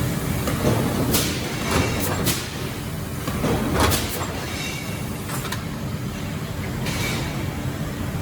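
An automated robotic upset forging line running: a steady low machine hum with short, sharp noisy bursts from the forging machinery every second or so at irregular intervals.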